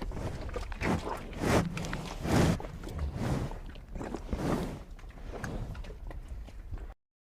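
Cow chewing and crunching feed, irregular munching bursts that stop abruptly near the end.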